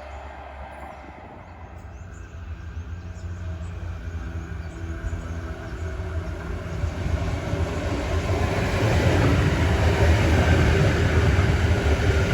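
Electric multiple-unit commuter train approaching, its low rumble and motor hum growing steadily louder. A faint high tone slides slowly down near the end.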